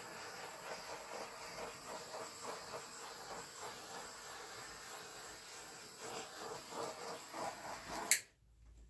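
Handheld torch flame hissing steadily as it is swept over wet acrylic paint to pop surface bubbles. The sound cuts off suddenly with a click near the end.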